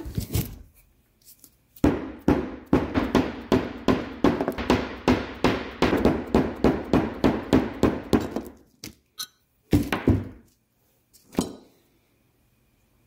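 Hammer striking a punch to knock the old rear main seal out of its seal housing: one strike, then a quick even run of sharp taps, about three or four a second for several seconds, then a few separate knocks.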